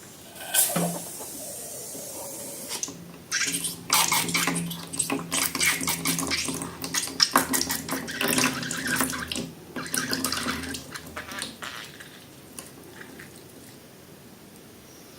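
Liquid pouring and splashing into a container, with a crackly, wet sound, mostly between about three and eleven seconds in; a shorter splash about half a second in.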